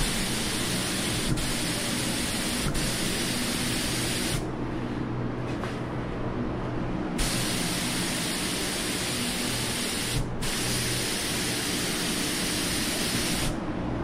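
HVLP spray gun spraying pre-catalyzed lacquer: a loud airy hiss in three passes, the first about four seconds long, then a pause of about three seconds, then two more passes with a split-second break between them, the last stopping just before the end. A steady low hum runs underneath.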